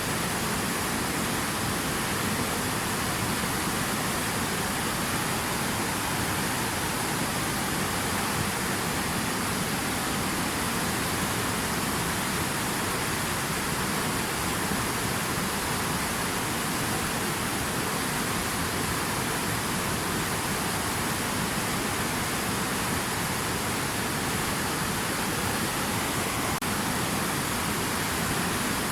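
Running water making a steady, even rush with no breaks or separate splashes.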